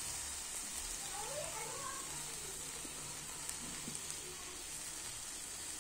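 Sausages sizzling steadily on a charcoal barbecue grill, a soft even hiss.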